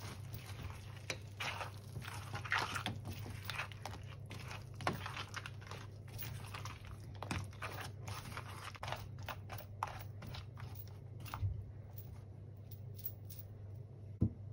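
Cooked crab being eaten: irregular crunching and sharp cracking clicks as shell is bitten and chewed, thinning out in the second half, over a low steady hum.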